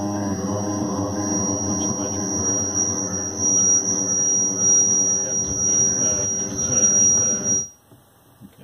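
The voice through a Lexicon effects processor set to a very long, almost infinite delay, its repeats piling up into a dense, sustained droning wash with a steady high whine. It cuts off suddenly about three-quarters of the way through.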